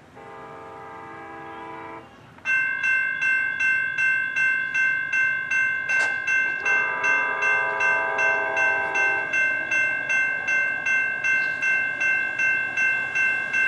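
Approaching commuter train's multi-chime air horn, a Nathan K5LA, sounding two long blasts, the second starting about halfway through. From about two seconds in, a grade-crossing bell rings steadily about twice a second and is the loudest sound.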